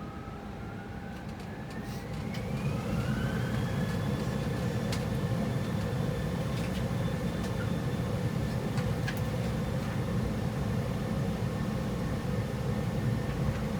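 Airbus A320 engines spooling up to takeoff thrust, heard through a flight simulator's sound system. A whine rises in pitch for about four seconds and then holds steady over a rumble from the takeoff roll, which grows louder about two seconds in.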